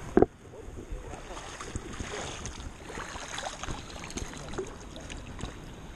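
River current running and splashing, with many small irregular splashes throughout. A single sharp knock sounds just after the start.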